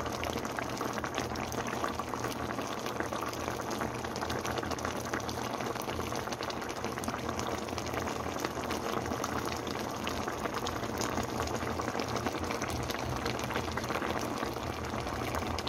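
Tomato-based vegetable stew bubbling in a pot: a steady simmer full of small popping bubbles.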